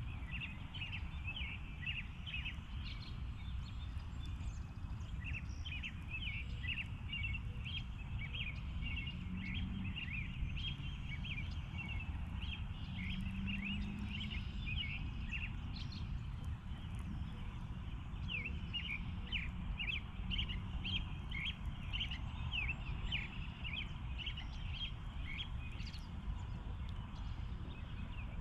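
Birds chirping, many short calls in rapid clusters throughout, over a steady low outdoor rumble.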